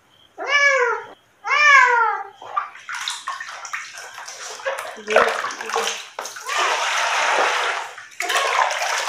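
A cat meows twice in the first two seconds, two drawn-out calls that rise and fall. Then water splashes and sloshes as the cat is washed by hand in a plastic basin.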